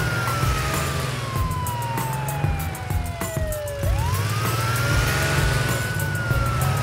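Police car siren wailing: a single tone that slides slowly down for about four seconds, then sweeps quickly back up, holds, and begins to fall again, over a steady low rumble.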